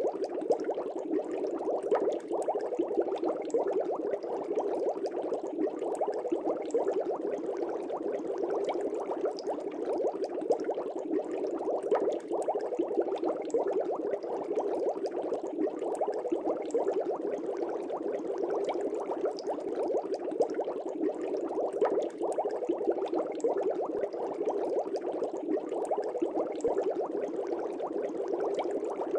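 Fish tank water bubbling: a steady, dense stream of air bubbles in an aquarium, with many small pops and crackles.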